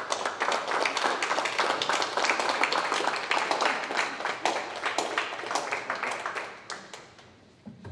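A roomful of people applauding: many hands clapping in a dense patter that thins to a few scattered claps and dies away about seven seconds in.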